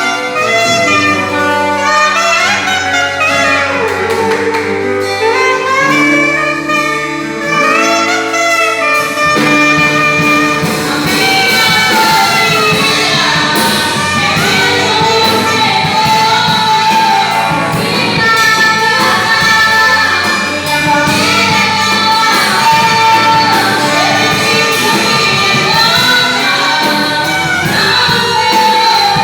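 A band playing music, led by a saxophone melody. Drums and the rest of the band come in fully about nine seconds in.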